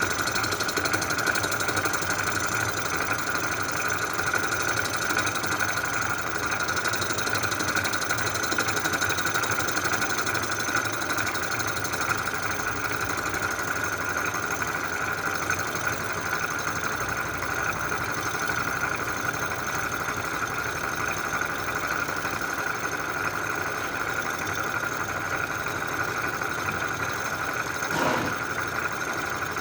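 Cylinder-head surfacing machine running steadily with a constant whine, facing the rusty exhaust side of an Oldsmobile V8 cylinder head. Near the end there is a single brief knock.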